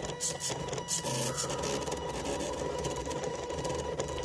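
Small stepper motors of a plotter built from old CD drives whining and buzzing as they drive the pen carriage in quick stop-start moves, with the pen scratching over the paper.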